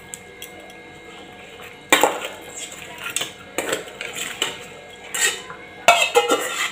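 Metal spatula scraping and clanking against a metal bowl and kadai while fried chhana pieces are pushed out of the bowl into the curry. The clatter starts about two seconds in with a sharp knock, and the loudest clanks come near the end.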